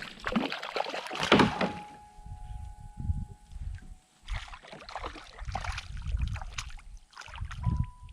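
Water splashing and sloshing around a small fishing boat, with knocks and rustling handling noise in irregular patches.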